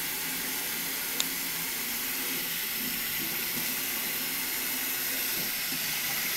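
Kitchen faucet running steadily into a stainless steel sink as a gutted catfish is rinsed under the stream by hand, with one short sharp click about a second in.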